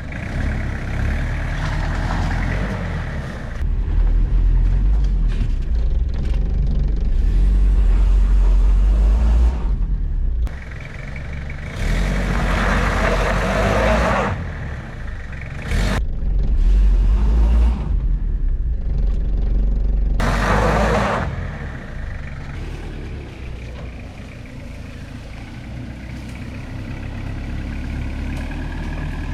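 Car being driven hard along a rough, muddy track, its engine and running gear rumbling heavily, with two louder rushing bouts about midway.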